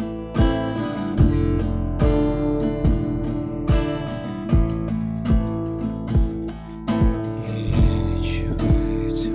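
Music: a song with strummed acoustic guitar over a steady beat.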